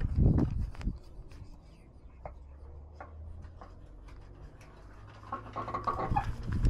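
Rubbing and scratching of a cat-worn action camera against fur and collar as the cat moves, with loud knocks in the first second, then a quiet spell with a few faint ticks, and the rustling picking up again near the end.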